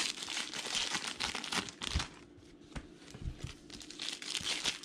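Crinkling rustle of a trading card pack's wrapper and cards being handled, in two spells with a quieter stretch between, where a couple of soft knocks fall on the tabletop.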